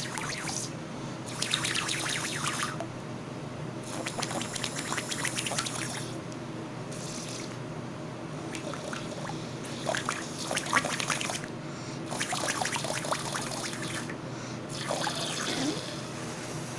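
Air blown through a straw into thick clear slime, gurgling and crackling wetly in repeated spells of a second or two, with short pauses between breaths.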